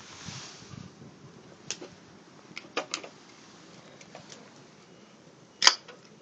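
Wood fire of scrap building lumber crackling, with scattered sharp snaps and one loud pop about two-thirds of the way through.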